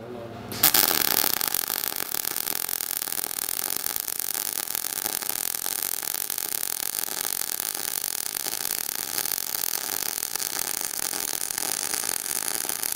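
MIG welding arc in globular transfer on 0.030-inch wire at 22 volts and 420 inches per minute wire feed. It strikes about half a second in, then runs as a steady, dense crackle with heavy pops. This is the hot globular mode throwing spatter.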